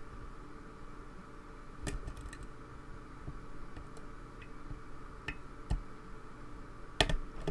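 Lock pick and tension bar working inside a pin tumbler lock: faint, scattered metallic clicks and scrapes as pins are set, with a sharper double click near the end.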